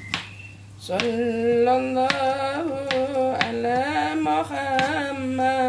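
A woman singing a slow, wavering sholawat melody, starting about a second in and held in long notes. Several sharp knife chops on a cutting board sound through the singing as she slices kailan stalks.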